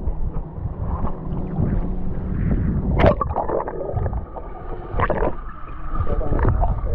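Water splashing and sloshing around people wading in the shallows, a few distinct splashes over a steady low rumble.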